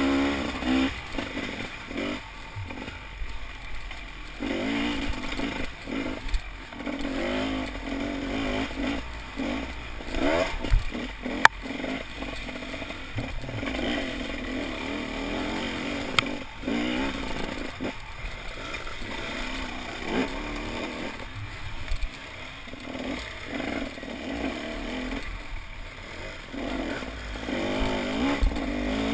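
Off-road motorcycle engine revving up and down as the throttle is worked, with rattling and scraping from the bike and track, and a sharp knock about eleven seconds in and another a few seconds later.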